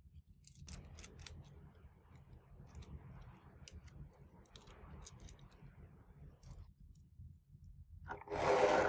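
Faint rustling and light scattered clicks of toys and packaging being handled, fading out about two-thirds of the way through, then a brief, much louder sound near the end.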